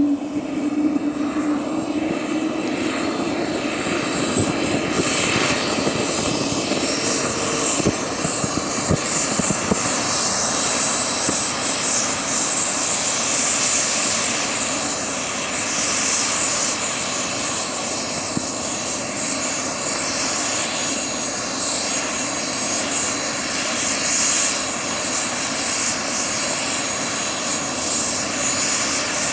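Radio-controlled scale Hughes 500 model helicopter spooling up on the ground as its main rotor comes up to speed. A steady high whine climbs in pitch over the first half, then holds.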